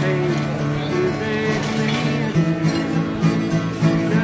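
Acoustic guitar strummed live, with chords changing.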